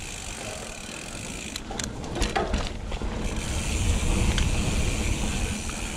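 Steel hardtail mountain bike rolling along a dirt trail: tyre noise and wind rushing over the camera microphone, with a few sharp clicks and knocks from the bike about two seconds in. The wind rumble grows louder over the last couple of seconds as speed builds.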